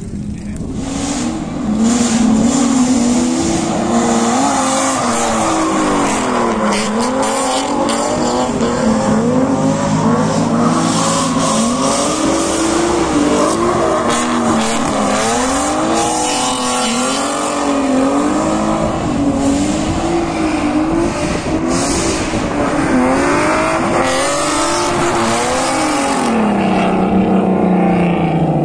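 Drift cars' engines revving up and down over and over as they slide, with tyre squeal. It gets louder about two seconds in, and a long falling rev comes near the end.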